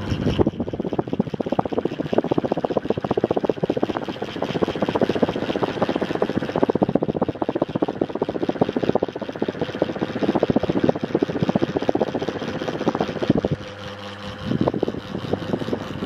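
Niga FC05-60 mini ceiling fan running, its downdraft buffeting the microphone in rapid, uneven gusts over the steady motor hum. The buffeting eases about 13 seconds in, leaving mostly the hum.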